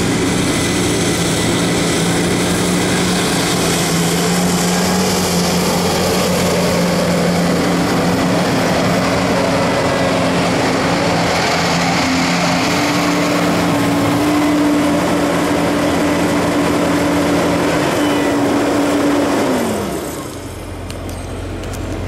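Case IH WD2303 self-propelled windrower running at mowing speed, its engine and cutting header making a loud, steady drone with a couple of steady hums as it approaches and passes close. About a second and a half before the end, the pitch drops and the sound falls away.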